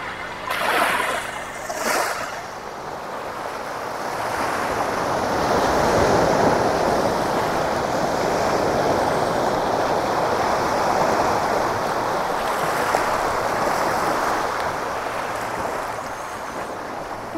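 Sea waves breaking and washing up a pebble beach, a steady rushing surf that grows louder a few seconds in.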